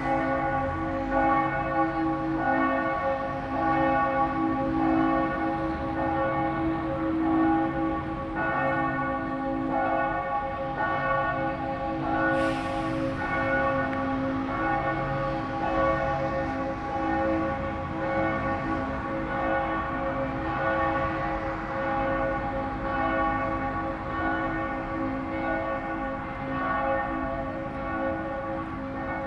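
Church bells ringing on and on, several bells struck again and again so that their tones overlap and hang in the air.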